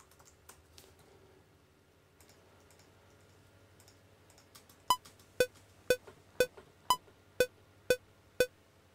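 Faint computer-keyboard typing in the first couple of seconds. Then a DAW metronome count-in: eight short electronic clicks half a second apart (120 BPM, two bars of 4/4), with the first and fifth pitched higher to mark the downbeats. It is the precount before recording begins.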